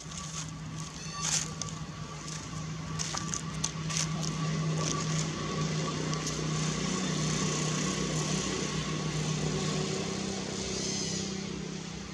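Steady low engine hum that grows louder over the first few seconds and eases off near the end, with a few sharp clicks in the first few seconds.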